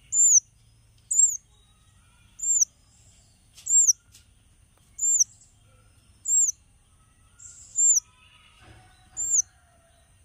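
A small songbird calling: a thin, very high note that rises and falls quickly, repeated eight times at an even pace of about one every second and a quarter.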